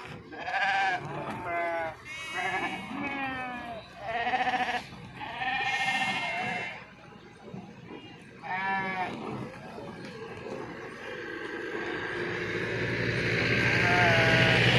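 Sheep bleating: several long, wavering calls in the first nine seconds and another near the end. From about ten seconds in, a vehicle's running noise, a hiss over a low hum, grows steadily louder until it is the loudest sound.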